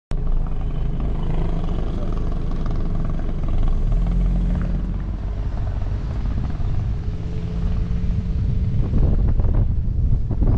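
Car engine and tyre noise heard from inside the cabin while driving slowly, with a few louder knocks near the end.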